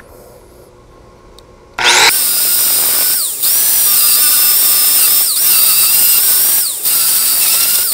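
Angle grinder starting up about two seconds in, then grinding into a steel weld with a steady high whine that dips in pitch several times and recovers. The wheel is grinding out the weld toe to open up slag inclusions and undercut for repair.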